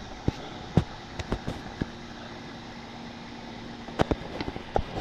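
Camera handling noise: irregular sharp knocks and taps as the camera is picked up and moved about. They run over a steady outdoor hiss and cluster near the end.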